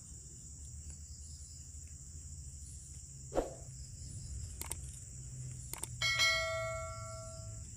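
Crickets chirring steadily and high-pitched. A couple of sharp clicks, then about six seconds in a bell-like ding that rings on and fades over a second and a half: a subscribe-button notification-bell sound effect.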